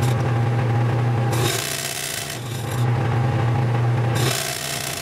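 Sped-up workshop sound at a metal lathe: a steady low hum with stretches of rasping, rubbing noise that come and go every second or so as the chuck and jaws are handled.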